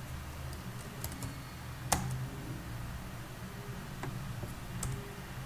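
A few scattered computer keyboard keystrokes, with one louder key press about two seconds in, over a steady low hum.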